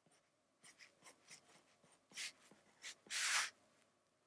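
Stylus tip scratching across an iPad Pro's glass screen in quick sketching strokes: a few faint short ones, then louder ones, the longest about three seconds in as an oval is drawn.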